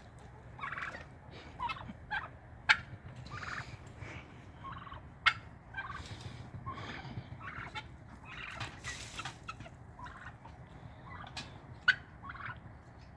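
A turkey gobbling among scattered short poultry calls, with a few sharp clicks.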